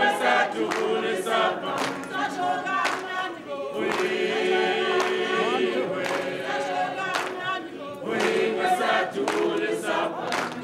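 A choir of many voices singing together, with sharp percussive hits about once a second and a long held chord about four to six seconds in.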